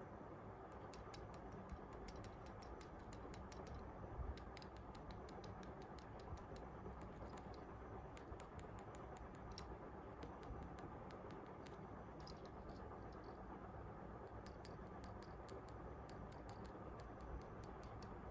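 Faint, irregular small clicks and taps over a steady low background hiss.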